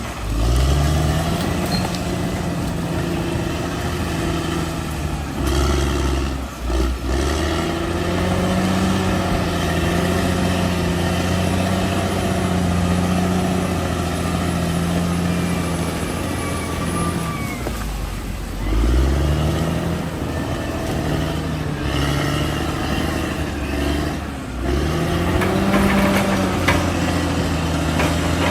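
Bulldozer's diesel engine working under load, its pitch dipping and revving back up several times as the load changes.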